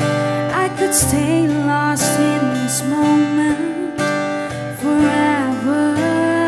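Background music: a slow song with guitar and a sung melody.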